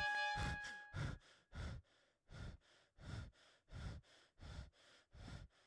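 A man breathing fast and hard in fright, about nine breaths in quick succession, with the tail of synth music dying away in the first second.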